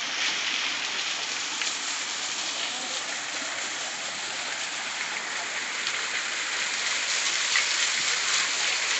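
Waterfall: a steady rush and hiss of falling water.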